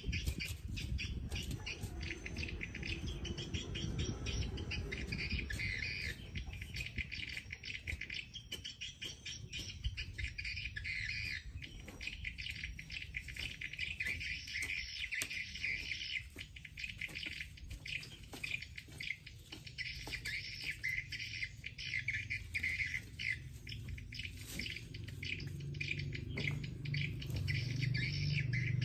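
Small birds chirping and twittering in a dense, continuous chorus, over soft chops and scrapes of a hand hoe working loose soil.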